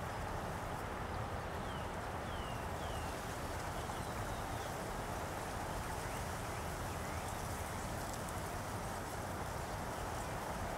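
Steady outdoor ambient noise, with a few short, faint falling bird chirps about two seconds in and one more near seven seconds.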